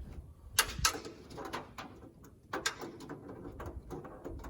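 A few sharp clicks and knocks: two close together about half a second in, and another pair about two and a half seconds in, with light rustling between.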